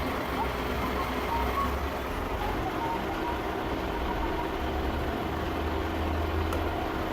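Steady machine-shop noise: machinery running evenly with a low rumble and no distinct impacts.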